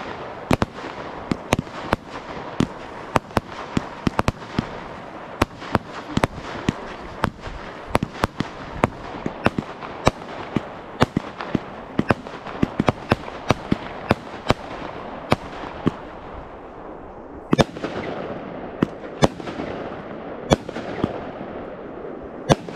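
Fireworks display: a rapid, irregular run of sharp bangs, several a second, over a continuous crackle. In the last third the bangs come further apart and stand out louder.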